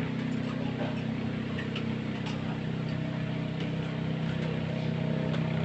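Steady low hum of a running motor, with a few faint light clicks.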